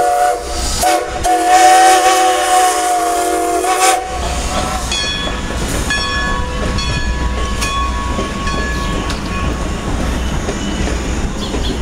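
Strasburg Rail Road No. 90, a 2-10-0 Decapod steam locomotive, sounds its chime steam whistle in a long blast of several notes at once. The blast breaks briefly about half a second in and cuts off about four seconds in. The passenger train then rumbles past, and a bell rings repeatedly for several seconds.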